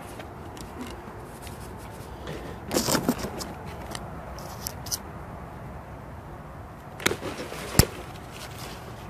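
Dry plant stalks and leaves rustling and crackling as they are handled and pulled up, in two short bursts, the second ending in one sharp snap.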